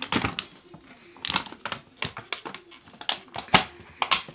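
Irregular sharp clicks and knocks with plastic crinkling as a plastic-wrapped penny board and its wheels are handled and pulled from the packaging.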